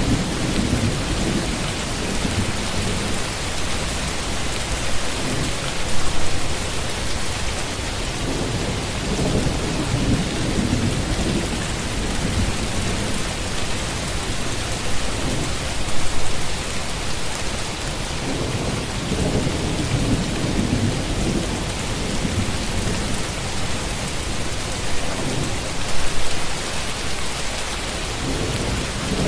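Steady heavy rain falling, with low thunder rumbling in and out under it; three louder swells come about ten seconds apart.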